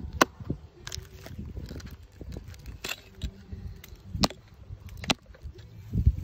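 Several sharp, separate snaps and cracks of dry wood or bark over low rustling, with a couple of heavier low knocks near the end.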